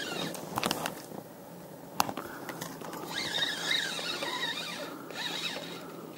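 Spinning reel being cranked to wind in fishing line, its gearing making a rattling, squeaky chatter, with a few sharp clicks.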